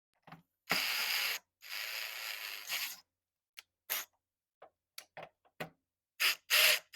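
Screwdriver turning the Phillips screws back into a roof panel's weatherstrip retainer: two longer bursts of ratcheting and grinding near the start, scattered single clicks in the middle, and a few short bursts again near the end.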